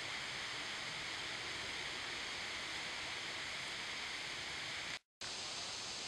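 Steady, even rushing outdoor background noise. About five seconds in it drops out completely for a split second, then carries on unchanged.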